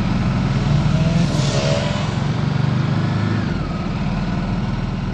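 Motorcycle engine running under load and accelerating as the bike gathers speed, heard from on board the bike.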